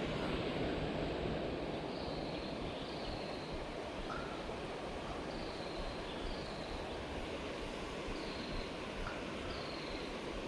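Steady rush of stream water flowing over rocks, with short high chirps repeating about once a second.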